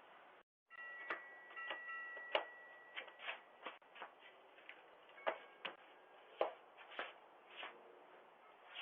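Irregular clicks, knocks and rustles over a low hiss, picked up by a doorbell camera's microphone.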